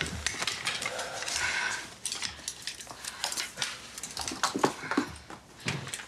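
Rustling and clattering of clothes and belongings being handled and pulled out of an open suitcase, with many small scattered knocks and clicks.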